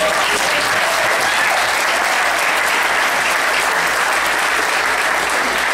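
Audience applauding: a loud, dense clatter of many hands clapping, steady throughout.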